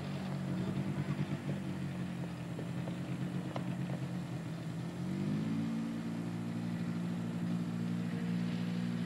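Four-wheeler ATV engine running steadily; its pitch rises about five seconds in, then holds.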